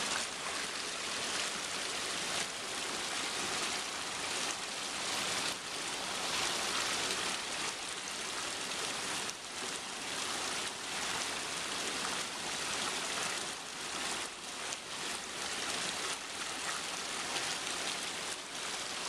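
Small mountain creek rushing over rocks: a steady wash of running water.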